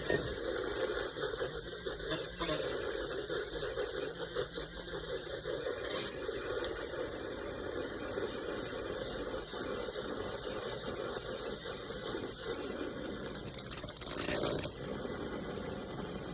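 Battery-powered Zulay handheld milk frother running steadily, its small motor spinning the whisk in liquid. It gets louder for about a second near the end.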